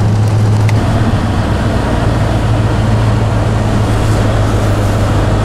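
Truck engine and road noise heard inside the cab while driving, a steady low drone under an even rushing noise.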